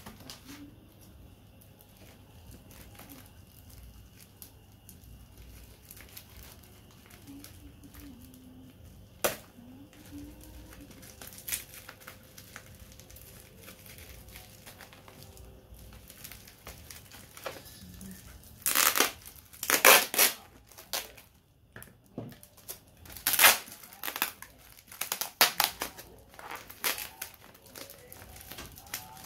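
Packaging being handled and torn open: a single sharp click about a third of the way in, then near the end a run of loud crinkling and tearing bursts.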